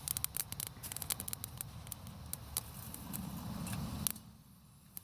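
Sticks burning in a small wood-burning camp stove, crackling with many quick sharp pops, over a low wind rumble on the microphone that drops away about four seconds in.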